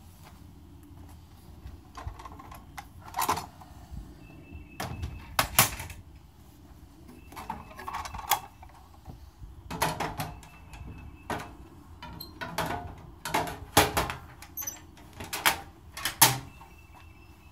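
Irregular sharp clicks and knocks, coming thickest in the second half, with a faint short high chirp every few seconds.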